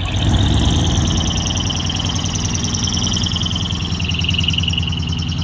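Large truck diesel engine running with a steady low rumble, under a high, fast-buzzing whine.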